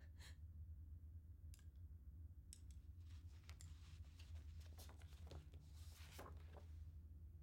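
Near silence over a low room hum, broken by a few faint clicks and then, from about three seconds in, soft paper rustling and light clicks as sheets and a pen are handled on a table.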